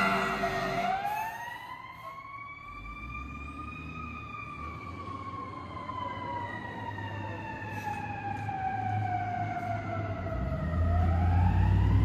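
Fire apparatus siren wailing in one slow cycle: its pitch rises for about three seconds, falls slowly for about seven, then starts rising again near the end. It opens on the last moment of an air horn blast, and a low vehicle rumble grows near the end.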